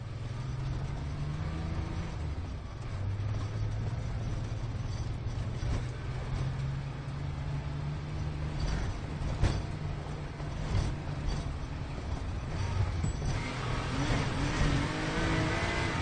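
Car engine running while driving, a steady low drone with a few sharp knocks around the middle; near the end a higher, wavering engine note comes in.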